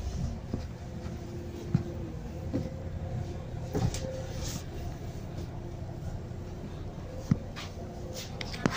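Inside a Volvo B9 bus: the steady low drone of its nine-litre six-cylinder diesel engine with a faint whine, broken by a few sharp knocks and rattles from the cabin.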